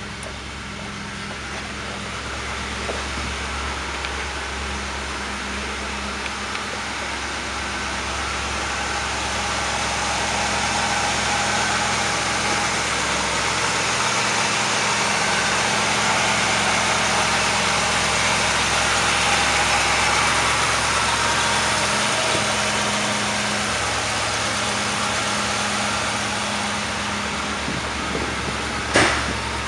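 1979 Pontiac Trans Am's 6.6-litre V8 idling steadily. It is louder around the middle, with the open engine bay close by. One sharp knock comes near the end.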